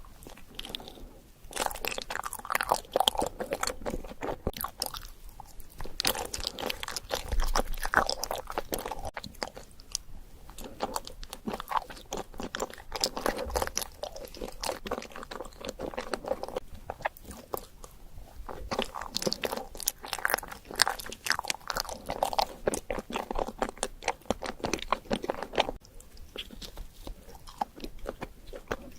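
Close-miked eating: bites and chewing, in bouts with short pauses between them.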